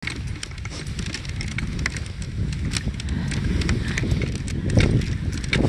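Dog sled running over packed snow behind a team of sled dogs: a steady low rumble of the runners and the moving sled, with many quick clicks and taps from the dogs' running feet and the harness lines.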